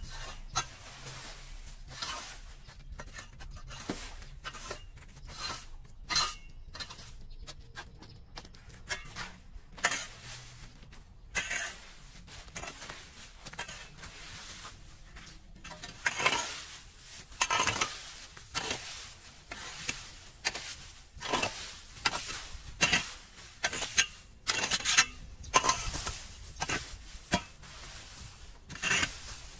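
Dry leaves and twigs being raked across a concrete pavement: repeated scraping, rustling strokes. They are sparse at first and come faster and louder in the second half.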